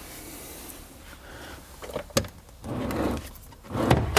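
Handling noises from working on a car seat during its removal: a sharp click about two seconds in, some rubbing and shuffling, and another sharp click at the end.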